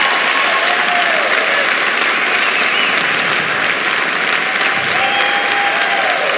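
Large concert audience applauding steadily, with a few short cheers rising over the clapping.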